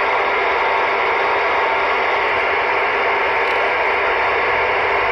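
Steady, loud CB radio static: an even hiss from the receiver's speaker on an open channel with no voice on it.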